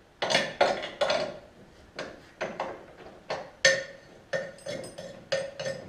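Hand tools clanking and clinking against the metal of a car's engine mount, with about a dozen irregular strikes, some with a short metallic ring, as the mount is worked loose.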